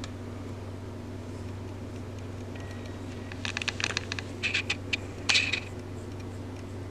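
A burst of short scratchy clicks and scrapes from a paintbrush and paint being handled while a 3D printed sword is brush-painted. It starts a little past the middle and ends with one louder scrape, over a steady low hum.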